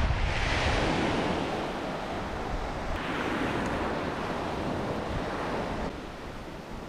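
Ocean surf washing up a beach, swelling twice, with wind rumbling on the microphone.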